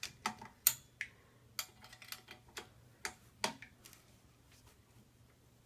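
Sharp metallic clicks of a hand tool on the bolts of a scooter's bar clamp as they are tightened. About a dozen come at an uneven pace, most within the first four seconds.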